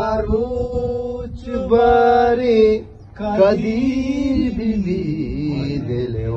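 A man singing slow, drawn-out notes in a chant-like melody, with a brief break about three seconds in.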